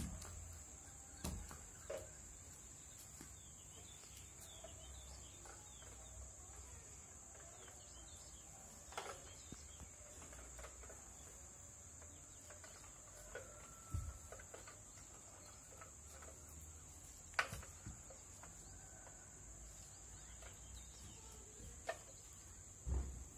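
Faint outdoor ambience: a steady high-pitched insect drone with a few faint bird chirps, broken by a handful of soft thumps and knocks.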